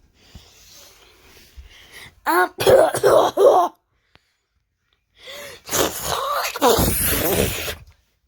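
A person coughing hard: a quick run of about four coughs a couple of seconds in, then a longer coughing fit from about five seconds in.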